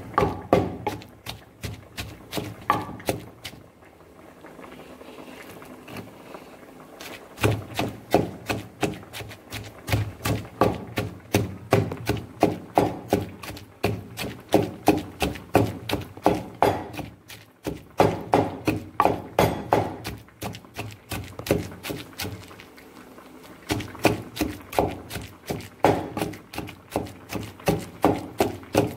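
Wooden pestle pounding red chilies, garlic and fish in a wooden mortar: a steady run of dull thuds about two a second, with a pause of a few seconds near the start and a shorter one about three-quarters of the way through.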